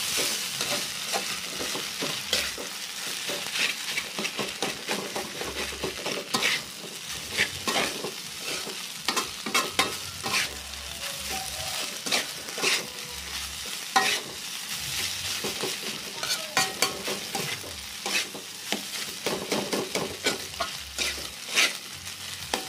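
Fried rice sizzling in a wok while a metal spatula stirs it, giving irregular scrapes and clinks against the pan over a steady frying hiss.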